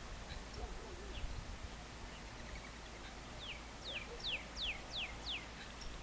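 A bird singing a quick run of about six clear downward-slurred whistled notes near the end, with faint scattered chip notes from other birds before it, over a steady low background hiss.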